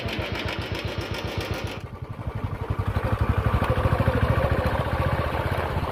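Motorcycle engine running with a rapid, even exhaust beat, growing louder about halfway through.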